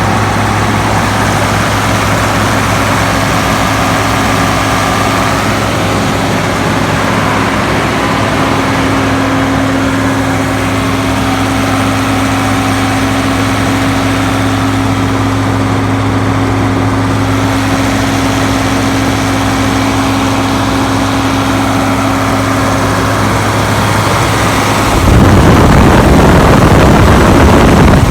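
Tractor-driven silage blower running while a wagon unloads into it: a steady engine hum with the whir of the blower. About 25 seconds in it gets abruptly louder and fuller.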